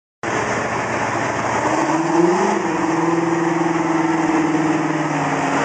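Large farm tractor engine running steadily, its pitch rising briefly about two seconds in before settling back.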